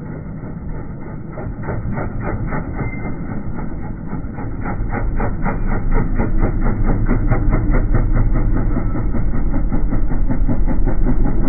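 Linhai M550L ATV engine slowed down with the slow-motion footage: a deep, dull rumble with distinct regular pulses, about five a second, growing louder.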